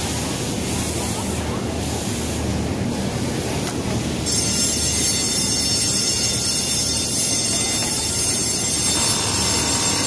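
Industrial programmable sewing machine running steadily; a high whine joins in about four seconds in.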